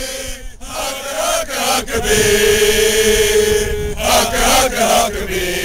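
A small group of men chanting together in unison as football supporters, holding long notes, one for nearly two seconds in the middle, after a brief break about half a second in.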